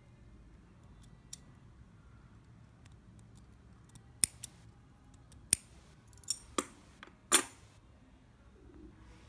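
A small cutting tool clicks and snips sharply while the tag end of monofilament fishing line is trimmed at a knotted swivel. There are about seven snips, bunched between about four and seven and a half seconds in, and the last one is longer.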